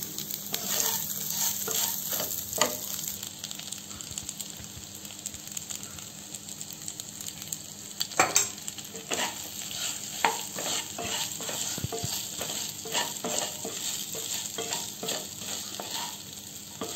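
Cut idli pieces frying in oil in a pan on a low flame, with a steady sizzle. A wooden spatula stirs and scrapes them against the pan in irregular strokes, with a few louder knocks, the loudest about eight seconds in.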